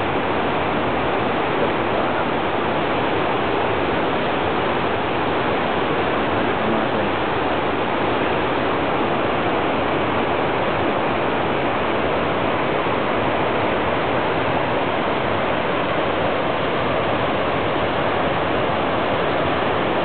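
Steady rush of Gullfoss, a large waterfall, heard close to its spray cloud: an even wash of falling water with no breaks.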